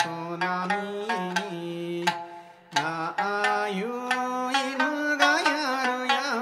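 Sanshin, the snakeskin-covered Okinawan three-string lute, plucked in a steady rhythm under a man singing an Okinoerabu folk song in long held notes that bend in pitch; both break off briefly about halfway through.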